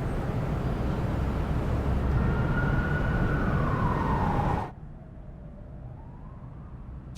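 Road traffic noise with an emergency-vehicle siren wailing downward in pitch. The traffic noise cuts off abruptly about two-thirds of the way through, leaving a fainter wailing tone.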